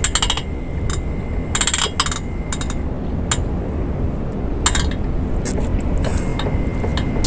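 Short clusters of metal clinks and rattles from an outdoor twister exercise machine's rotating footplates as a man twists on it, over a steady low background rumble.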